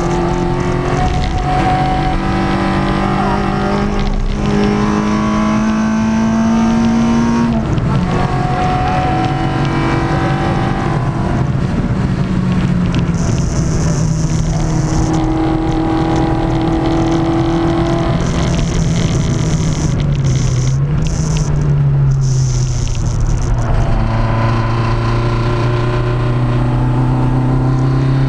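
Peugeot 106 track car's four-cylinder engine with Jenvey throttle bodies, heard from inside the cabin, driven hard on track. The engine note climbs in pitch under acceleration and drops at gear changes, about seven and a half seconds in, again around eleven seconds, and with a dip and rise about twenty seconds in.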